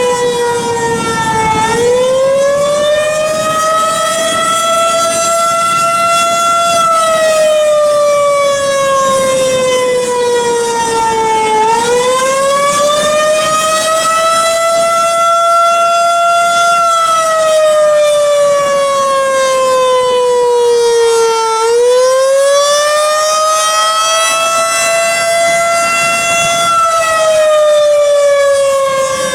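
Federal Signal 2001-130 electromechanical warning siren sounding its attack signal during a test. The loud tone wails slowly up and down in pitch, rising and falling about once every ten seconds, three times through.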